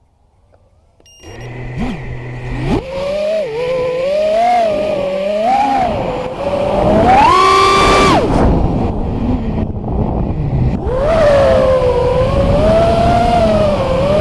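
FPV racing quadcopter's brushless motors and propellers spinning up about a second in, holding a low steady hum briefly, then whining with the throttle, the pitch rising and falling. Near the middle there is a hard punch to the highest, loudest pitch, which then drops away before climbing again.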